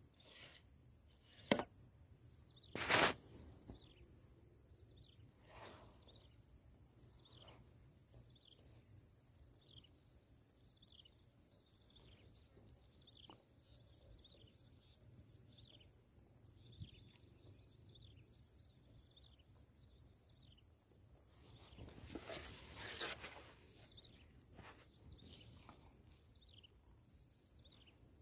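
Swamp-side ambience: a steady high insect drone with a bird repeating short falling chirps about once a second. Two sharp knocks near the start and a burst of rustling about 22 seconds in come from the camera being handled against clothing and the fishing pole.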